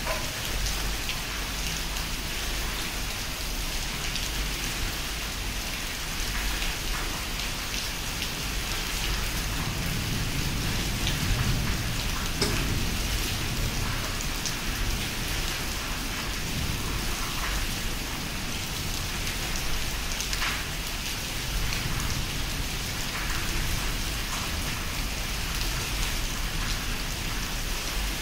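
Steady rain falling, with many small drop ticks. A low rumble of thunder swells about ten seconds in and dies away a few seconds later.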